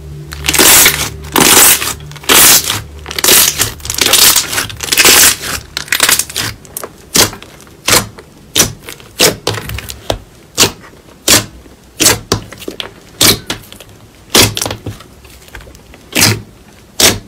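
White fluffy slime being pressed and squished by hand, its trapped air popping and crackling in a run of loud squelches. They come thick and fast for the first few seconds, then settle to about one or two a second as the fingers press in and fold it.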